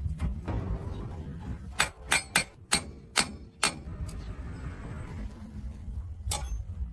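Hand tools knocking and clinking on metal parts, six sharp strikes in quick succession and then one more near the end, over a low steady rumble.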